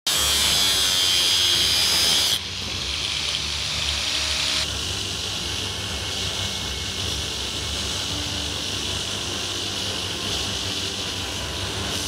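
Belt grinder grinding a forge-welded laminated steel billet, the motor humming steadily under the grinding noise. The face is being ground flat so that the welds between the layers can be checked. The grind is harsher and louder for about the first two seconds, drops, then steps down again a couple of seconds later and settles.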